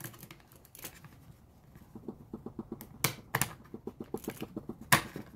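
Small hard clicks and a quick run of light ticks, about five a second, from metal parts and tools being worked by hand on a lock held in a vise. One sharp click near the end is the loudest.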